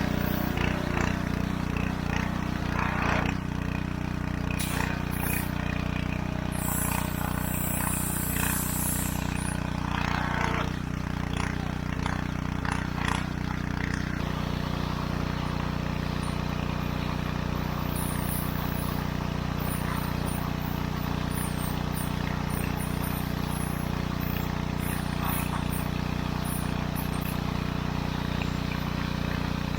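A 3,000 psi pressure washer running steadily with a constant engine-like hum. Irregular knocks and hiss sound over it in the first half.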